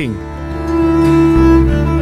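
Background music with long held notes over a low bass; the bass moves to a new note a little past halfway.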